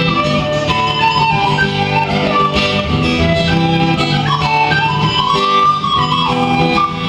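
Music from the family's Christian children's song: a wavering melody line over a plucked guitar accompaniment.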